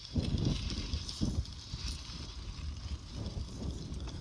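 Bicycle being ridden through deep sand, with uneven gusts of wind rumbling on the microphone.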